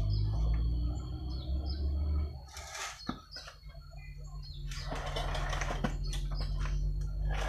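Small birds chirping briefly over a low hum in the first two seconds, then scattered knocks and scraping as a heavy engine block on a wooden plank is shifted over steel pipe rollers.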